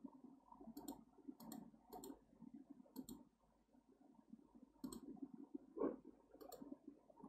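Computer mouse clicking about six times at irregular intervals, each click a quick double tick of press and release, over a faint low rumble, with a soft thump about six seconds in.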